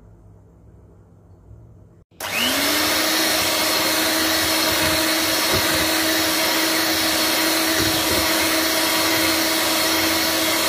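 Electric hand mixer switched on about two seconds in, its motor spinning up quickly and then whirring steadily at one speed as its twin beaters whisk condensed milk into whipped cream.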